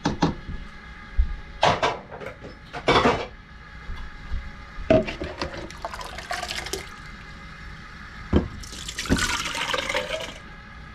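Cooked beans in sauce being scooped out of an enamelware stockpot and dropped into a stoneware bean pot: wet plops and scrapes against the pot, with a single knock about eight seconds in. Near the end, water is poured from a plastic pitcher into the bean pot.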